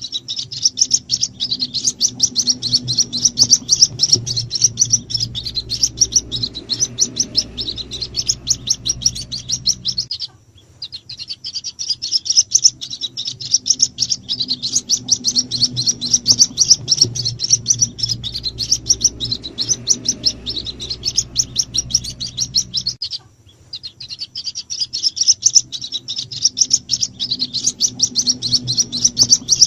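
White-breasted waterhen (ruak-ruak) chicks peeping: a dense, rapid stream of short high-pitched cheeps over a low hum. These are the chick calls used as a lure to draw in the parent birds. The calling stops briefly twice, about 10 and 23 seconds in, and starts again at once.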